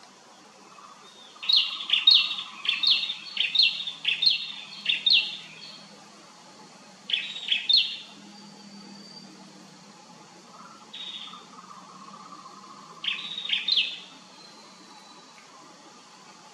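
A bird calling: a quick run of sharp, high chirped notes, about two a second for some four seconds, then two shorter bursts of the same notes, one near the middle and one near the end.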